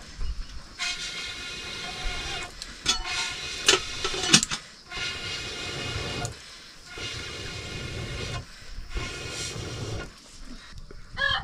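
Pressure cooker whistling with hissing steam, in several spells broken by short gaps, with a few sharp knocks partway through. A rooster starts crowing near the end.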